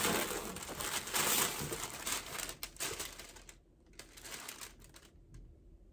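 Packaging wrap rustling and crinkling as folded clothes are lifted out of a shipping box, busiest for the first few seconds, then a few lighter rustles.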